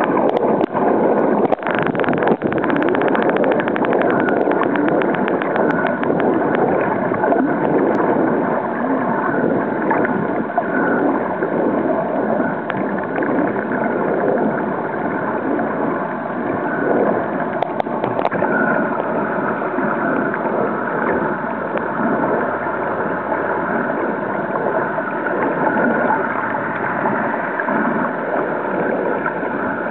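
Muffled underwater noise picked up through a camera's waterproof housing: a steady rushing and gurgling, with a quick run of clicks about two to five seconds in.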